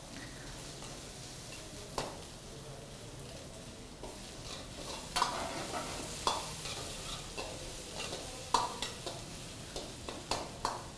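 Sliced onions sizzling steadily in hot oil in a kadai, with a metal ladle scraping and knocking against the pan as they are stirred; the knocks come more often in the second half.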